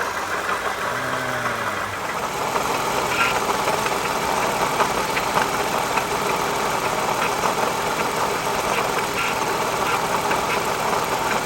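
Toyota Sienna V6 engine idling steadily, heard close at the front of the engine with its accessory belt, water pump and idler pulley running, and a faint ticking now and then. The owner takes the noise for a worn water pump that is going out.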